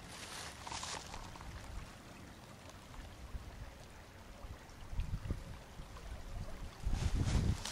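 Shallow creek flowing over a stony bed: a steady rush of running water. Low rumbling buffets come about five seconds in and again, louder, near the end.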